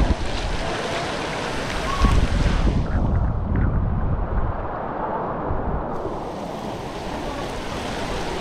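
Wind gusting across the microphone over a steady rush of water, with heavier gusts right at the start and about two seconds in.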